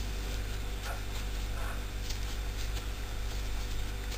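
Steady low electrical hum, with faint scattered ticks and rustles from a metal crochet hook working yarn into short stitches.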